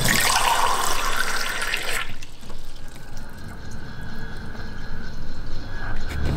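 Water from a tap running into a cup, stopping about two seconds in.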